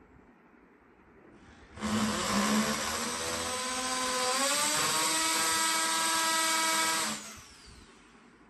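Corded electric drill boring a hole in plywood: the motor starts about two seconds in, runs with its pitch rising partway through, then stops and winds down about seven seconds in.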